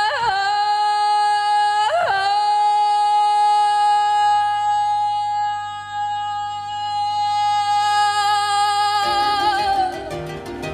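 Woman's voice singing one long wordless note in a live performance, scooping up into it twice and then holding it steady for several seconds. Lower instrument chords come in near the end as the note fades.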